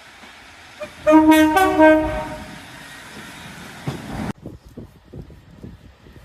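Train horn sounding a steady multi-note chord for about a second, starting about a second in, with two louder pushes, followed by the rumble of the train, which cuts off abruptly about four seconds in.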